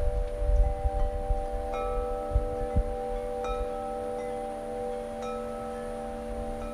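Large Corinthian tubular wind chime ringing in the breeze, several low tones sustaining and overlapping, struck afresh about three times. Wind rumbles on the microphone underneath.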